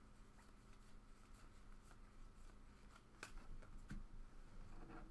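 Faint handling of trading cards: light rustling and a few soft clicks and taps as cards are slid and set down, a little more distinct about three and four seconds in.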